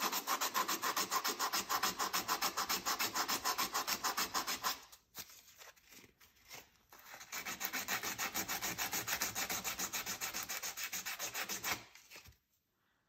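Rapid, rhythmic hand-sanding strokes, several a second, of 300-grit sandpaper on the scored aluminum piston of a Husqvarna 272XP chainsaw, rubbing out the scoring grooves. The strokes break off about five seconds in with a few scattered scrapes, resume about two seconds later, and stop shortly before the end.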